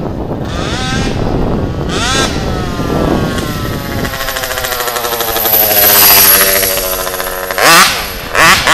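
RCMAX 90cc two-stroke petrol engine in an HPI Baja RC car on a high-speed pass. The engine note climbs, then runs steady and slowly falls in pitch as the car goes by, loudest about six seconds in, with two short, sharp revs near the end. The owner thinks it is probably starving for fuel and running lean.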